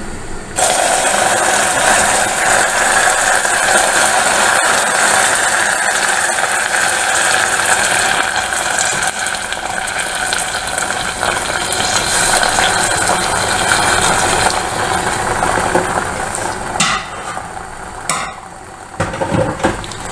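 Hot caramelized sugar in a pan sizzling and hissing loudly as apple-and-sage water is poured onto it. The hiss starts suddenly about half a second in, holds for around fifteen seconds, then dies down, with a couple of knocks near the end.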